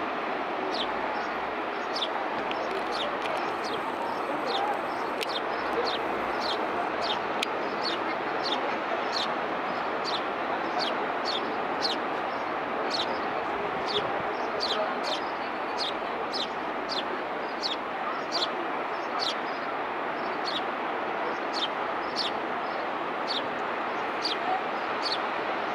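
Steady wash of surf breaking on a sandy beach, with a small bird repeating a short, high chirp that falls in pitch, a little more than once a second.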